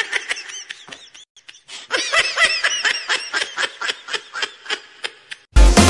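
High-pitched laughter: a rapid string of short giggles in two bursts, with a brief pause about a second in. Beat-driven dance music cuts in near the end.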